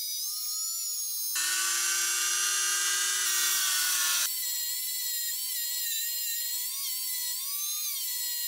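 Handheld rotary tool spinning a steel wire brush against a hex socket bolt, power-brushing off the last of its phosphate coating: a steady high whine. For about three seconds, starting a second in, the pitch drops and a harsher scratching noise joins, then the whine returns.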